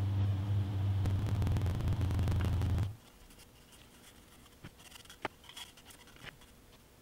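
A steady low motor hum cuts off suddenly about three seconds in. After it, faint scratching and light taps of a paintbrush working over a plastic model brick wall.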